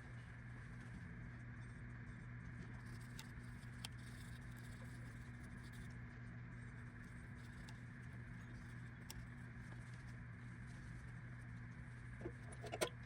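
Faint steady hum with a few light clicks, and a short cluster of small knocks near the end.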